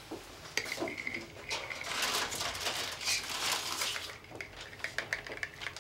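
Light kitchen clatter: scattered clicks and clinks of a spoon against a bowl and dishes being handled.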